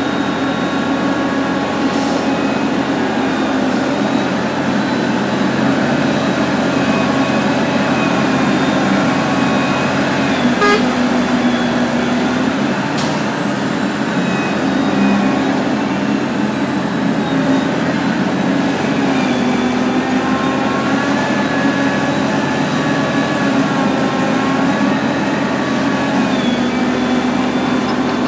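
Heavy diesel earthmoving machines running together: a large hydraulic excavator's engine and hydraulics rising and falling in pitch as it digs, swings and loads a dump truck, with the dump truck and a crawler dozer running alongside. A few short knocks stand out, the clearest about eleven and thirteen seconds in.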